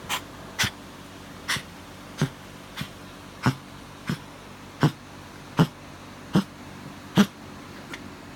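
A pet coughing in a steady run of short, sharp coughs, about one every three quarters of a second, a dozen in all, the loudest near the end.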